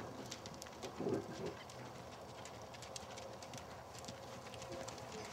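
Horse's hoofbeats on arena dirt at a lope, a run of soft, quick strikes. A brief, louder low rush of sound about a second in.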